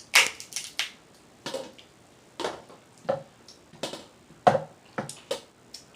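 Eating a seafood boil: a dozen or so short, sharp cracks and wet smacks at irregular spacing, from crab shells being broken open and mouth smacking while chewing.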